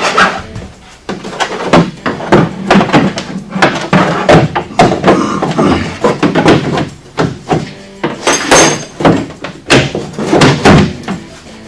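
Hand file being worked over a freshly cut notch in a center console to smooth it, in uneven rasping strokes with short pauses.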